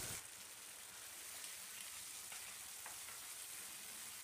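Faint sizzling of onion and capsicum with a freshly added lemon-juice, cornflour and water sauce in a nonstick frying pan, with a few light clicks from a wooden spatula stirring.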